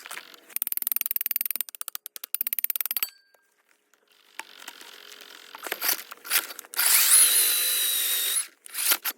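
Milwaukee cordless core drill: a fast train of clicks for a couple of seconds, a pause, then a few short bursts. About 7 s in the motor spins up with a rising whine, runs for about a second and a half, and stops suddenly.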